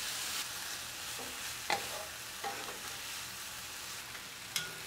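Diced vegetables (onion, carrot, red bell pepper, zucchini) sizzling steadily in olive oil in a frying pan, with three short clinks of a utensil.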